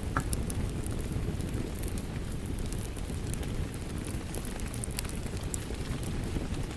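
Fireplace wood fire crackling with sparse sharp pops, together with steady rain.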